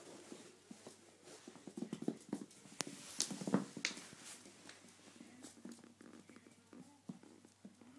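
Chihuahua puppy scuffling and wrestling with a leopard-print toy on a wood floor: a run of quick taps, knocks and rustling scuffles, busiest and loudest about two to four seconds in.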